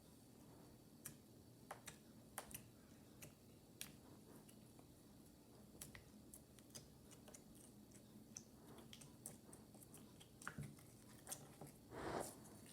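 Slime being squeezed and stretched by hand, making faint, scattered sticky clicks and pops, with a brief louder soft noise near the end.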